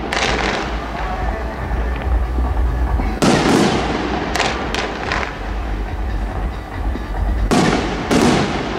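Fireworks display: sharp bangs about three seconds in, then a quick run of three cracks, then two more bangs near the end, over a steady low rumble.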